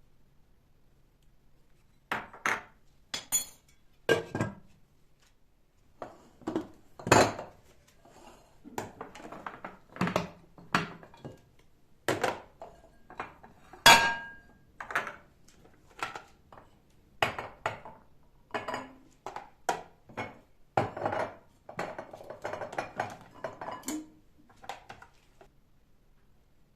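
Dishes and cutlery being handled: a long string of separate knocks and clinks, with one ringing clink about halfway through.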